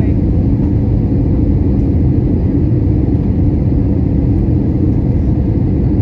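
Steady low cabin noise of an Airbus A320 in flight, a constant roar of the jet engines and airflow heard from a window seat inside the cabin.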